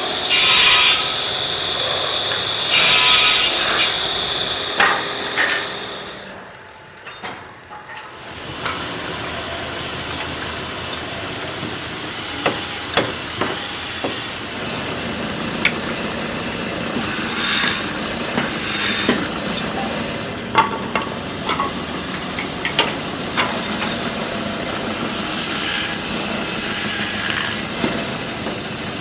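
Woodworking in a workshop: a power tool with a high whine cuts or shapes wood in two short bursts. It is followed by steady machine noise with scattered knocks and taps.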